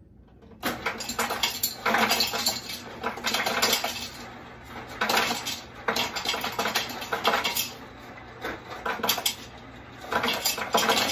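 Ice cubes clattering down from a refrigerator door ice dispenser into a glass pitcher, in several runs of rattling clinks with short pauses between them.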